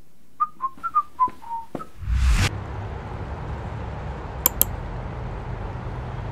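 A short whistled tune of about seven quick notes, followed about two seconds in by a whoosh. After that comes a steady low background rumble, with two sharp mouse clicks past the middle.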